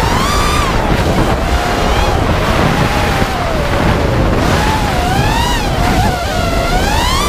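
FPV racing quadcopter's motors whining, the pitch rising and falling with the throttle and climbing sharply near the end, over heavy wind rush on the onboard camera's microphone.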